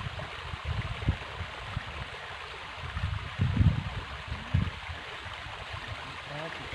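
River water flowing steadily, with low bumps and rumbles on the microphone, the strongest a little past three and a half seconds in and again about a second later.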